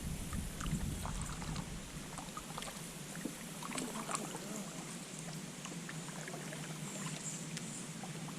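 Water sloshing against a kayak, with light scattered clicks and knocks on the hull.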